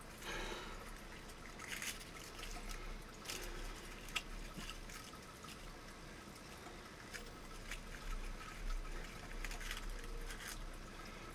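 Faint handling noises: scattered light clicks and soft rustles as fly-tying thread and small tools are picked up and handled.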